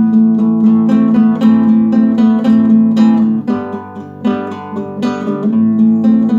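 Classical guitar played solo in a steady rhythm of strummed and plucked chords, about three strokes a second, softening briefly about four seconds in.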